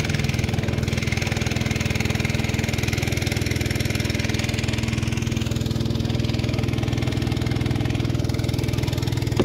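A small engine running steadily at one unchanging speed.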